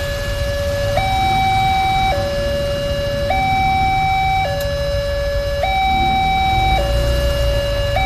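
Alkmaar-brand railway level-crossing warning siren sounding a steady two-tone hi-lo alternation, each tone held for a little over a second.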